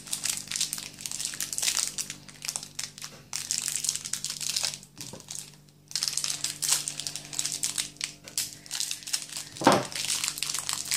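Plastic sweet wrapper crinkling in stretches as a piece of lemon Turkish delight is unwrapped by hand, with a pause in the middle and a short vocal sound near the end.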